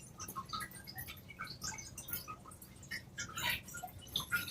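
Faint, scattered small clicks and taps: cockatiels pecking and chewing at a toy.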